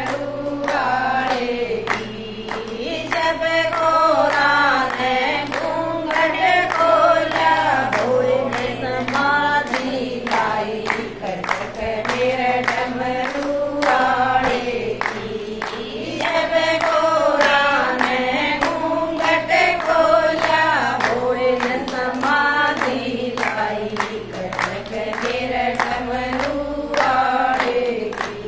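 A group of women singing a Haryanvi Shiva bhajan together, clapping their hands on a steady beat.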